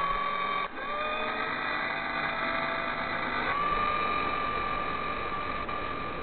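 A machine-motor sound effect: a steady whine that glides up in pitch as it spins up and then holds. It cuts off abruptly about a second in, spins up again, and shifts slightly around the middle.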